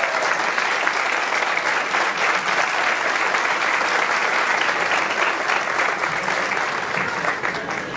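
Audience applauding steadily at the end of a stage performance, easing off a little near the end.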